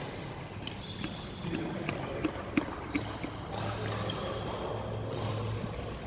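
Scattered sharp taps and clicks of badminton play, rackets, shuttlecock and shoes on a wooden court floor, the loudest about two and a half seconds in. A low steady hum comes in about halfway through.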